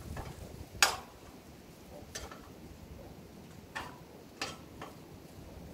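Wrench clinking against metal bolt hardware on a garden tractor: about five sharp, irregular clicks, the loudest about a second in.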